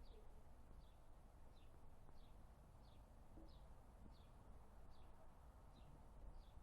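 A small bird calling over and over, faint: about ten short, high, falling notes evenly spaced roughly two-thirds of a second apart, over a low background rumble.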